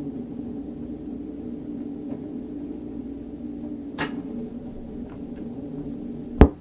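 Steady low droning tones from a recording released on cassette, with a faint click about four seconds in and a sharp, loud click near the end.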